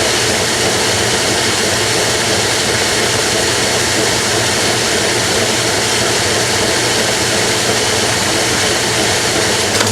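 Washing machine running with its cabinet removed, a loud steady hum with a dense rushing noise over it. There is a brief click near the end.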